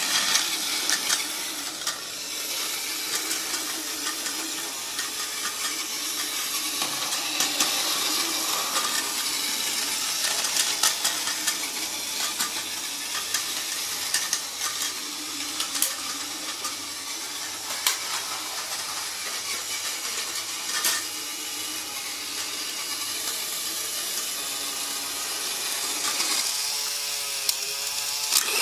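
Battery-powered Tomy Plarail toy train running along plastic track: a steady noisy whir with scattered sharp clicks.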